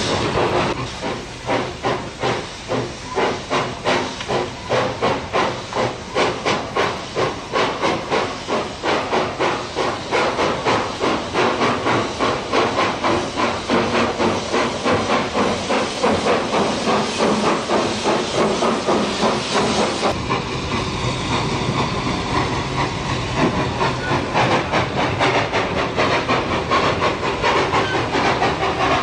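Baldwin compound cog-railway steam locomotive working, its exhaust chuffing in a steady rhythm of about two beats a second over hissing steam from the cylinders. About two-thirds of the way through, the beats become less distinct under a steadier hiss.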